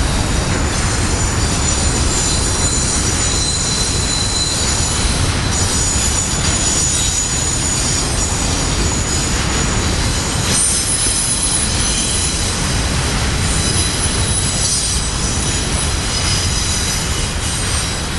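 Union Pacific auto rack freight train rolling past at speed: a steady rumble of wheels on rail, with thin high wheel squeals that come and go. The loudness eases slightly near the end as the last cars go by.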